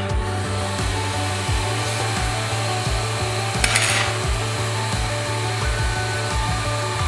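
Background music with steady sustained tones and a regular low pulse, overlaid by a hiss, with a brief louder burst of hiss a little past the middle.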